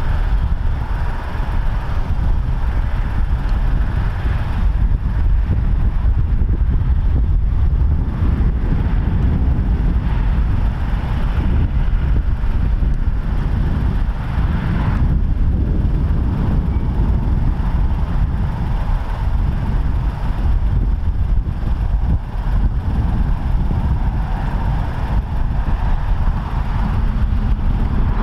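British Army Land Rover Defender (Wolf) utility vehicles driving in convoy, their diesel engines running steadily with a heavy low rumble as they approach and pass.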